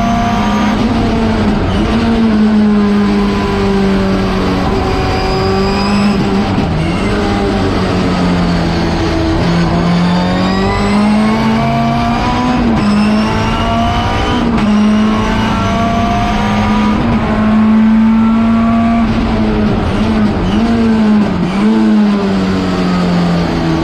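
Schnitzer BMW 320 Turbo Group 5 race car's turbocharged four-cylinder engine at racing speed, heard from inside the cockpit. The revs rise and fall through the corners, with several quick dips where the gears change.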